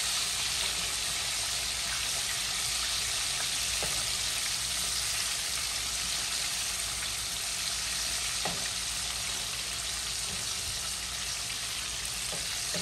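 Breaded chicken tenders deep-frying in hot oil in a pot: a steady sizzle, with a few light knocks as a metal slotted spatula turns the pieces against the pot. The tenders are nearly done and floating.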